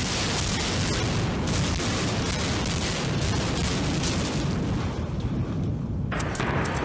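Building implosion: demolition charges go off suddenly with a series of sharp cracks, followed by the steady low rumble of the structure collapsing. The sound changes abruptly about six seconds in, with more cracks.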